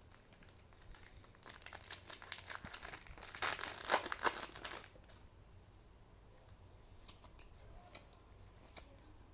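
A foil trading-card booster pack being torn open and crinkled by hand. The crinkling starts about a second and a half in, is loudest toward the middle, and stops after about five seconds, leaving only a few faint ticks of cards being handled.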